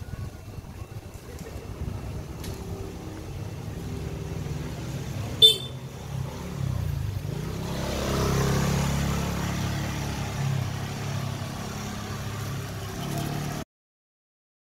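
Small motorcycle-type engine running close by in a narrow market alley, its pitch dipping and rising about six to seven seconds in and getting louder after that, with one sharp click about five and a half seconds in. The sound cuts off abruptly near the end.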